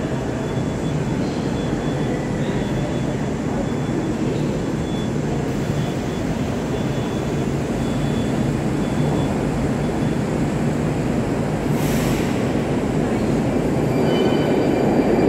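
Metro train rumbling in the tunnel as it approaches the station, a steady low rumble that grows louder over the last few seconds.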